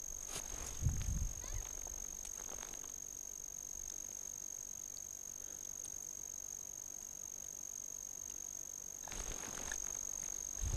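A steady thin high-pitched electronic whine, with a few faint low knocks about a second in and a brief rustle of movement near the end.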